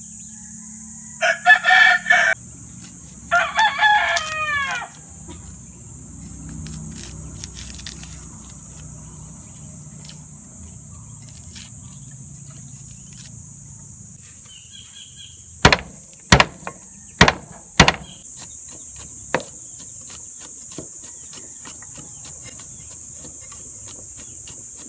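A rooster crows twice near the start, over a steady high-pitched drone of insects. Later a steel cleaver strikes a wooden chopping board four times in quick succession, followed by quick light chopping of garlic.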